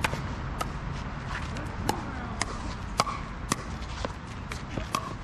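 Pickleball paddles hitting the hollow plastic ball: a string of sharp pops about two a second, as in a rally, some louder and some fainter.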